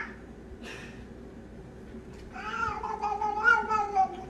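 Domestic cat giving one long, drawn-out meow, starting a little past halfway, its pitch wavering and then dropping at the end.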